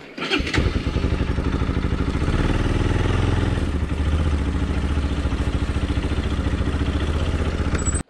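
Motorcycle engine starting about half a second in, then running with a steady, even beat. It runs a little harder for about a second around three seconds in.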